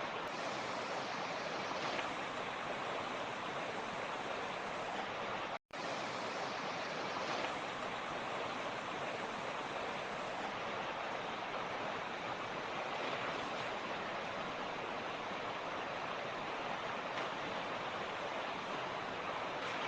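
Fast-flowing mountain stream rushing steadily over rocks, an even wash of water noise. A split-second silent gap breaks it about five and a half seconds in.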